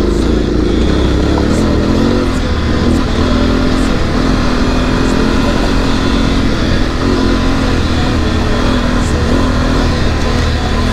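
Adventure motorcycle engine running under load on a gravel road. Its note drops about a second in, then holds fairly steady with small rises and falls. Heavy wind rumble sits on the riding camera's microphone.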